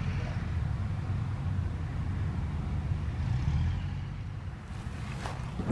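Steady low rumble of road traffic, easing off a little about four seconds in.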